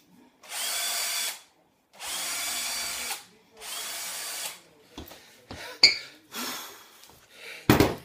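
Cordless drill run in three short bursts of about a second each against a fridge-freezer door, each burst whirring up to speed. This is followed by scattered clicks and two sharp knocks, the louder one near the end.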